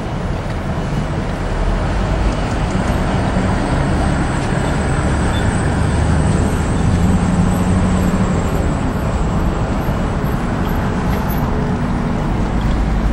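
Engine hum and road noise heard from inside a vehicle's cab as it drives along, steady throughout.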